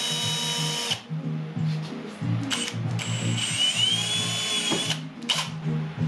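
Cordless drill running at speed to bore a small breather hole through stainless steel tubing; the hole lets steam escape during brazing. The drill stops about a second in, then spins up again with a rising whine about three seconds in and runs steadily for about two seconds before stopping.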